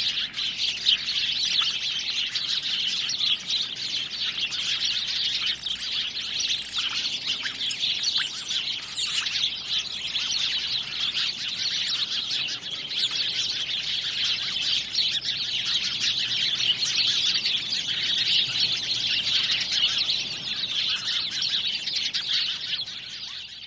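A dense chorus of many birds chirping and calling together. One bird repeats a short high note about twice a second through the first half. The chorus fades out at the very end.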